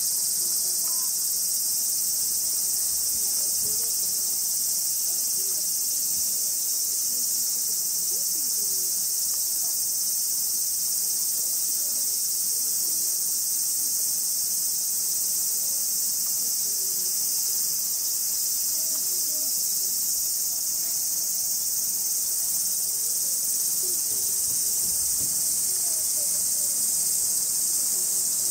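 A steady, unbroken high-pitched chorus of insects in summer.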